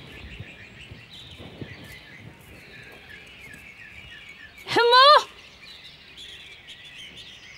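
Small birds chirp and sing steadily in the background. About five seconds in, a woman calls out a name once, a loud, drawn-out shout that rises and then falls in pitch.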